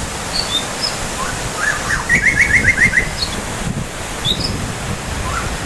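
A songbird singing over a steady rushing noise. Its phrase opens with a few short high chirps and ends in a fast trill of about seven notes about two seconds in. It begins again near the end.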